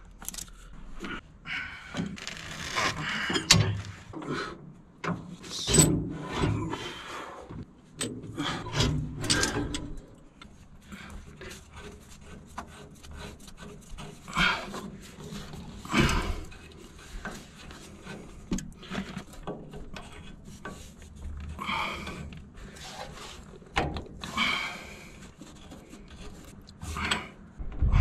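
Hands working a braided hydraulic hose fitting and a large open-end wrench on a bulldozer: irregular metal clicks, scrapes and rubbing, with a few sharper knocks, the loudest about sixteen seconds in.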